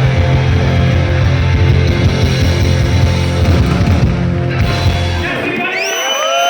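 Live rock band playing loud, held chords with heavy bass that cut off about five seconds in. The audience then starts cheering and whistling at the end of the song.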